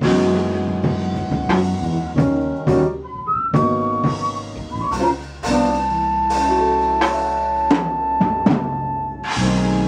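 Live jazz-funk band playing, with a drum kit striking over electric bass, keyboards, guitar and flute. In the second half a single high note is held for about four seconds.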